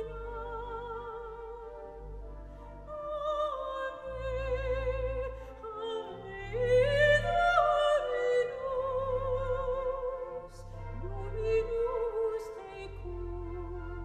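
Background music: operatic singing with a wide vibrato over orchestral accompaniment.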